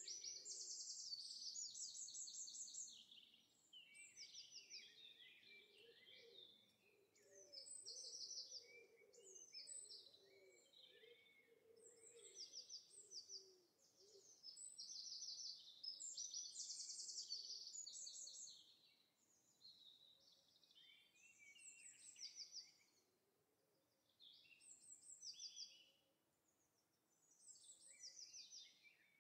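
Quiet recorded birdsong: several birds chirping and trilling in short, quickly repeated phrases that come in clusters, with softer low calls underneath around the middle.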